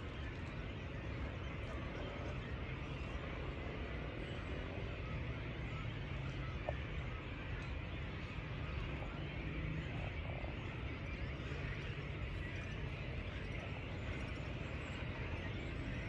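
A steady, dense chorus of frogs croaking.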